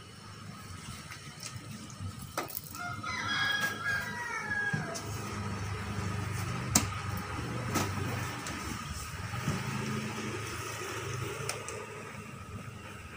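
Handling noise from packing ribbon fish into plastic-lined styrofoam cool boxes: scattered knocks and rubbing of fish, plastic and foam. A brief squeaky warbling sound comes a few seconds in, over a faint steady whine.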